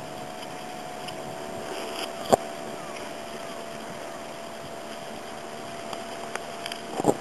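A steady hum holding one constant tone, with wind on the microphone. One sharp knock about two and a half seconds in, and a few small clicks near the end.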